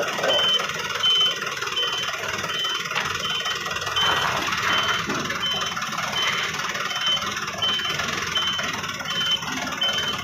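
A vehicle engine running steadily, with a high electronic warning beeper sounding about twice a second, typical of lifting or loading machinery at work.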